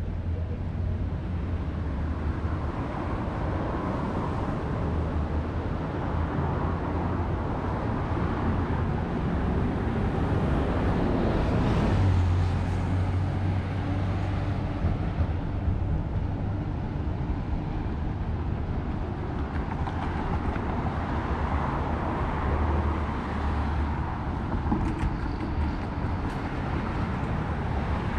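City road traffic: a steady rumble of passing cars and engines, with one vehicle passing louder about twelve seconds in.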